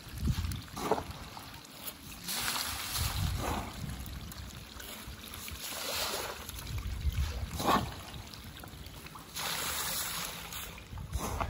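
Catfish thrashing and splashing at the pond surface in a feeding frenzy as pellet feed is thrown onto the water. The splashing comes in uneven surges a second or two apart.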